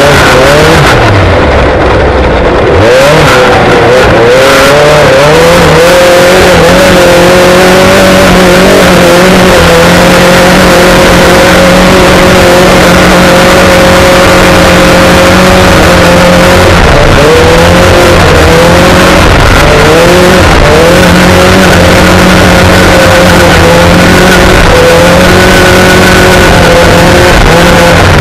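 Loud off-road race car engine running hard, heard from inside the cockpit. The revs climb and drop several times in the first few seconds and again a little past halfway, and hold fairly steady in between, over a constant rumble of dirt and wind.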